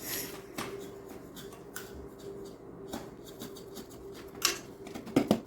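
Scattered small clicks and scrapes of a digging tool working through clay in a dinosaur fossil dig kit, with a couple of louder knocks near the end.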